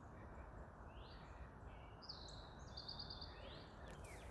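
Faint birdsong over a low steady background hiss: a few short rising chirps and a quick run of repeated notes midway through.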